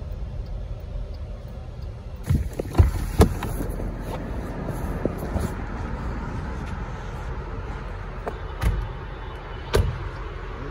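Steady low road rumble of a car in motion, with several sharp bangs: three in quick succession after about two seconds and two more near the end.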